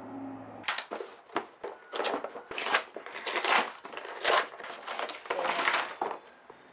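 Paper wrapping being torn and crumpled off a box by hand: a run of irregular ripping and crinkling noises.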